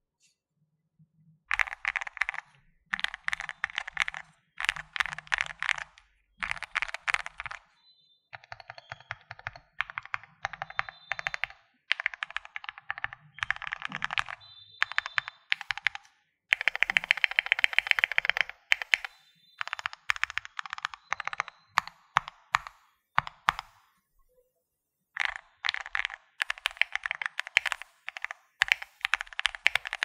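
Typing on a Finalkey V81 Plus mechanical keyboard with lubed Gateron Milky Yellow Pro linear switches and XDA PBT keycaps. The keystrokes come in quick runs about a second long with short pauses between them, and one longer fast run midway.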